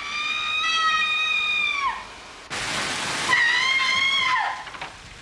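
A woman screaming: two long, high-pitched screams, each held for a second or more and falling away at the end, with a short rush of noise between them.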